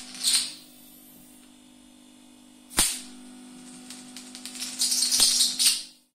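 140 kV DC sparks jumping from a metal sphere electrode to a rod. Sharp cracks come just after the start and again about three seconds in, then a dense sizzling crackle of discharge builds near the end with one more crack, all over a steady low hum. It cuts off suddenly at the end.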